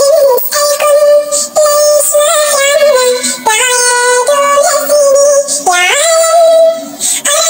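A high-pitched voice singing an Arabic song over music, holding long notes with a few slides in pitch between them.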